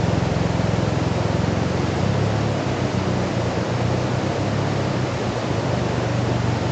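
Stream water rushing steadily, a loud even hiss over a low rumble.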